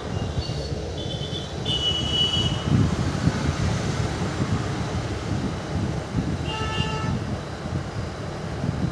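Passenger train running with a steady low rumble, with short high horn toots about a second in and again about two-thirds of the way through.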